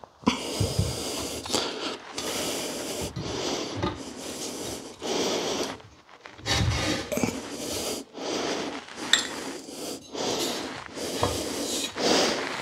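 A screw-in end piece is twisted into the end of a parallette bar, making repeated rubbing, rasping strokes about once a second.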